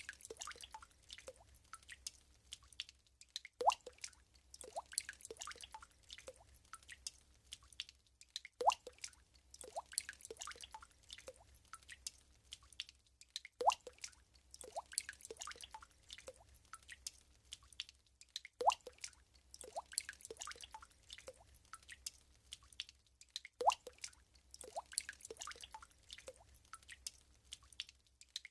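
Water drops plopping one after another into still water, each a short bloop that rises quickly in pitch. A louder drop comes about every five seconds in a repeating pattern.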